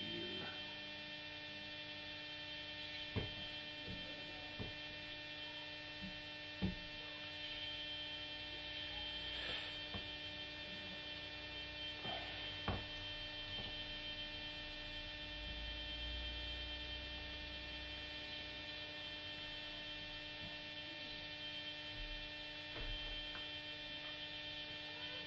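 Steady electrical mains hum with a stack of overtones, broken by a few faint short clicks.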